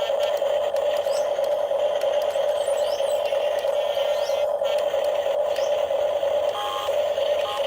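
Small electric motor of an RC model excavator running with a steady whine.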